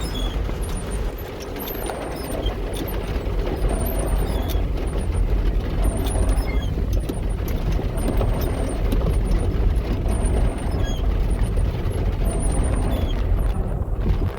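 Dodge A108 van driving slowly through deep muddy water: a steady low engine and road rumble with a rushing haze and frequent small ticks and spatters over it.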